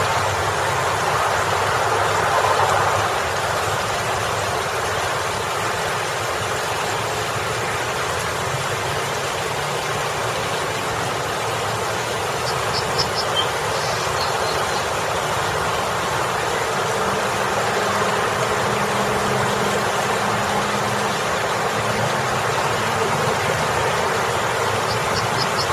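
A small waterfall splashing steadily over a boulder, over a bed of road traffic. Vehicles pass, and a low engine hum swells for several seconds in the second half.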